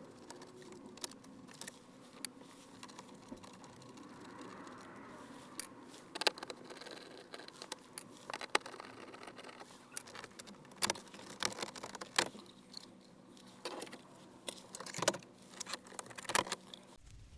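Irregular clicks, taps and light scraping of dashboard trim and tools being handled while the van's dash is taken apart to reach the heater controls, with the clicks coming more often in the second half. A faint steady hum lies underneath.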